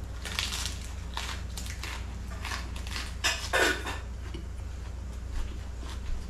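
Close-up crunchy biting and chewing of a lettuce wrap: scattered crisp crunches, with a short falling vocal sound from the eater about three and a half seconds in.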